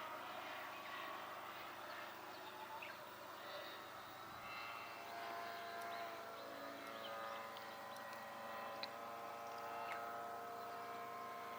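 Radio-controlled aerobatic model airplane flying in the distance: a faint, steady drone of its motor that grows clearer about halfway through. A few short bird chirps sound over it.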